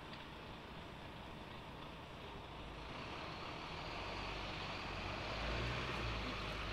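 Road traffic: a motor vehicle passing on a nearby street, a low rumble with hiss that swells through the second half and starts to fade near the end.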